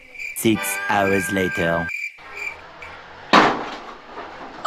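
Crickets chirping steadily, a high pulsing trill. About half a second in a voice-like sliding sound runs for over a second and cuts off abruptly, and a little over three seconds in comes a single loud bang.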